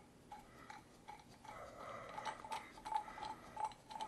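Faint, light metallic ticking, about three ticks a second and a little uneven, as the threaded parts of a slide-hammer bearing puller are screwed together by hand.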